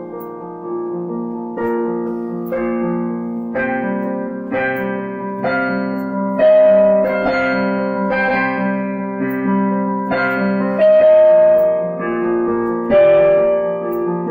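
Background piano music: chords struck about once a second, with a few longer held melody notes.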